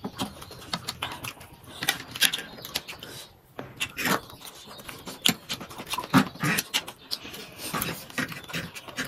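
Close-up eating sounds: chewing and lip-smacking on chicken wings and other food, with irregular sharp clicks and the scrape of spoons on plates and a tray.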